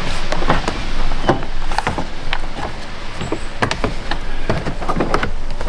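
GMC Envoy's plastic rear door trim panel being pushed and worked onto the door, with many scattered clicks, taps and knocks of plastic against the door as it is seated into the top groove.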